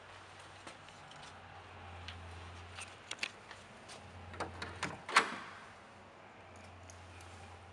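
Door hardware clicking as a security screen door and a front door are unlatched and swung open: a few small clicks, then a quick run of clicks with one sharp, loud click about five seconds in.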